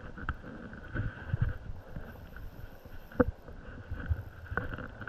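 River water running steadily, with wind buffeting the microphone. Two sharp knocks come about three and four and a half seconds in.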